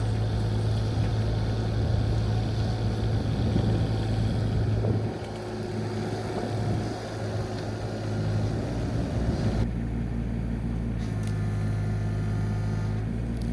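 A 1.8-ton mini excavator's diesel engine running steadily with a low drone. The sound changes abruptly about ten seconds in.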